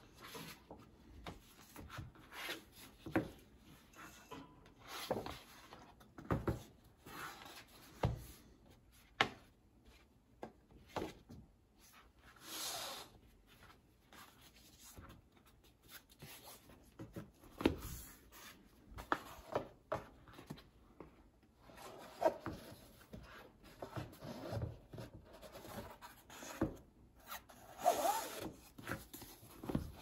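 Paper rustling and sliding as an accordion-fold book of handmade paper is folded shut by hand, with scattered soft knocks and taps of its board covers and box on the table.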